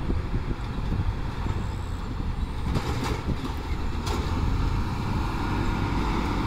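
Road traffic passing close by: trucks and a small van, engine and tyre rumble. A brief hiss comes about three seconds in, and a short sharp noise just after four seconds.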